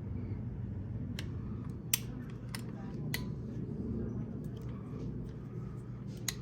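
A wrench on the engine oil drain bolt of a Kawasaki KLX 230 as it is tightened to torque: about eight sharp metal clicks, irregularly spaced, the loudest about two seconds in. A steady low hum runs underneath.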